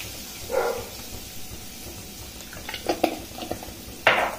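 Spice masala frying quietly in mustard oil in a stainless steel kadhai as salt is added, with a faint sizzle. A steel spatula scrapes and clicks against the pan: a soft scrape under a second in, a quick run of light clicks around three seconds, and a louder scrape just before the end.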